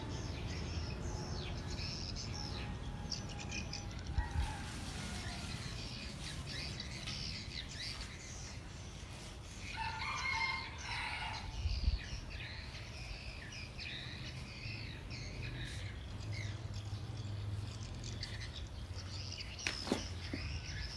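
Small birds chirping: many short, high chirps overlapping throughout, with a louder call about halfway through, over a low steady rumble.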